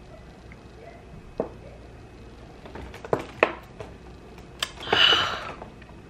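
A few sharp knocks and clicks from a shot glass and a plastic water jug being handled, then a loud, harsh breath out about five seconds in, a reaction to the shot she has just drunk.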